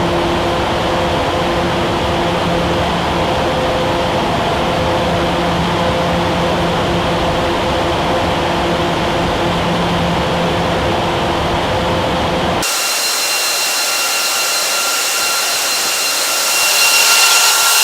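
Wall-of-wind test rig with large electric fans running at high speed: a steady rush of wind with a low hum. About thirteen seconds in it cuts abruptly to a hissier rush with a high whine.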